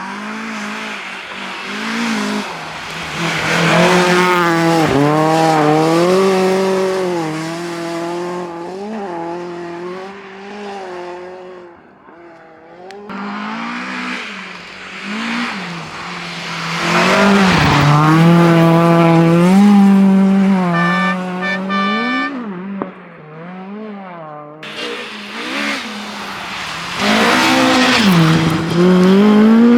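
Rally cars at full stage speed passing in turn, three loud passes in a row, their engines revving hard and the pitch rising and dropping with each gear change and lift.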